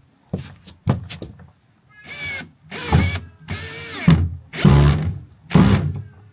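Cordless drill driving self-tapping screws into overlapped plastic sheet. Its motor runs in about five short bursts with a changing whine, after a few sharp clicks at the start.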